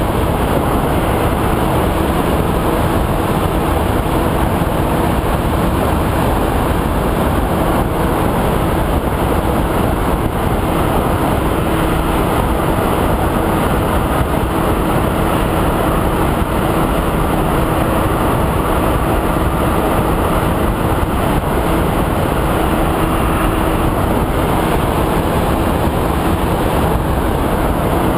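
Steady in-flight noise from a Multiplex EasyStar RC foam plane: air rushing over the onboard GoPro, with the electric pusher motor and propeller holding a constant tone.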